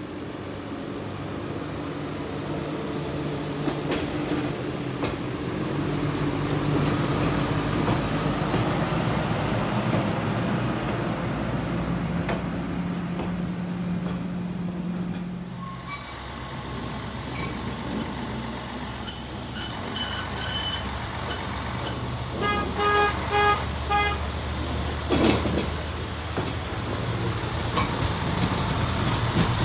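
Hi-rail trucks running on the rails: the first truck's engine drone grows louder and then drops away after about sixteen seconds. A quick series of short toots follows, then a loud swish, and a second, heavier hi-rail truck's engine comes up near the end.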